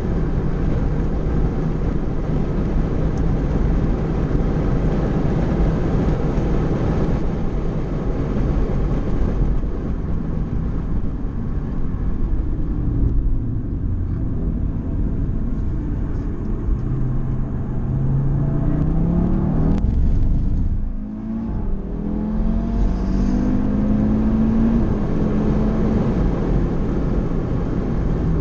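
Car engine and road noise heard from inside the cabin, steady for the first half. The engine note then climbs under acceleration, drops back briefly at an upshift a little past two-thirds of the way in, and climbs again.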